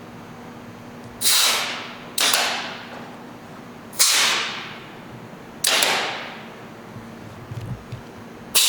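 Pneumatic clamps of a Ritter R375V frame clamp being cycled, five times. Each shift gives a sudden hiss of compressed air exhausting that fades away over about a second.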